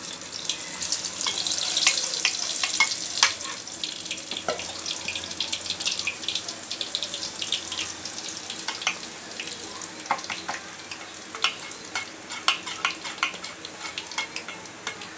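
Gram-flour batter dripping through a perforated boondi ladle into hot oil, sizzling and crackling as the boondi fry, with many small sharp pops. The sizzle is loudest in the first few seconds and then eases.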